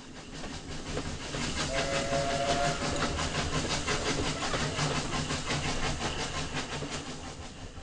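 Steam locomotive sound effect: fast, rhythmic chuffing with steam hiss that swells up and then fades away, with a short steam whistle blast about two seconds in.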